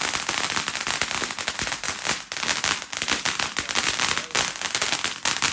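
Fireworks crackling: a dense, continuous rapid crackle with no big bangs.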